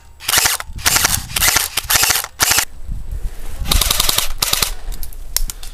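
Airsoft electric rifles firing full-auto: several short bursts of rapid clicks in quick succession, a pause of about a second, then two more bursts.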